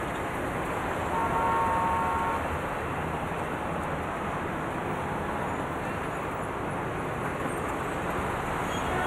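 Steady roadway traffic noise, with a brief steady tone, like a vehicle horn, about a second in.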